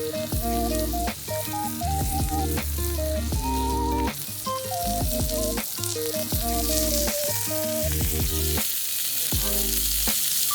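Food sizzling and frying in a pan, under background music with a stepping melody, bass and a beat.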